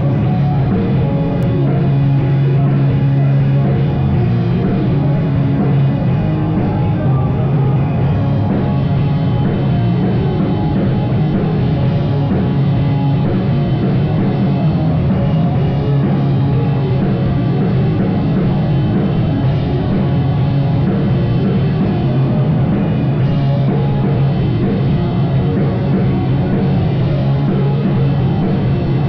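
Live rock band playing loudly with drums and distorted guitar, a dense and steady wall of sound.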